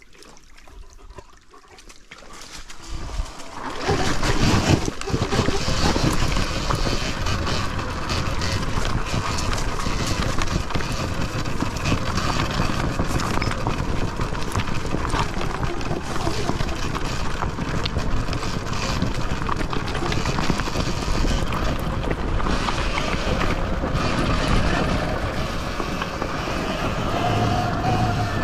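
Steady rushing noise of a Sur-Ron Ultra Bee electric dirt bike being ridden off-road. It comes up about three and a half seconds in, after a quieter start, and holds steady; a faint steady whine shows near the end.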